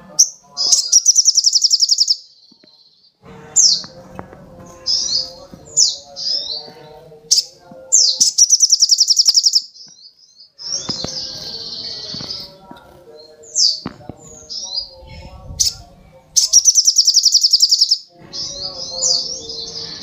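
Male olive-backed sunbird (sogok ontong) singing loudly and continuously, in the lively 'gacor' style: short high sweeping chirps, broken three times by a rapid buzzy trill about a second and a half long.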